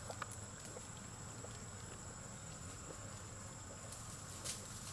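Quiet outdoor ambience: a steady low hiss with a thin, steady high whine, broken by a few faint soft clicks or rustles, the clearest about four and a half seconds in.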